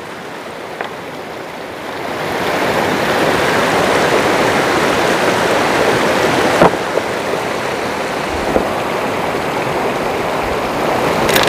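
Shallow rocky mountain stream rushing and splashing over boulders, a steady wash of water noise that grows louder about two seconds in. One short knock is heard about two-thirds of the way through.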